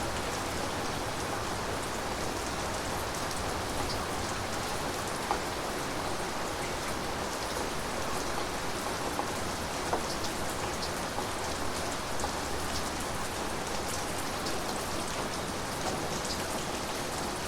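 Steady rain falling: an even hiss with scattered sharper drop hits.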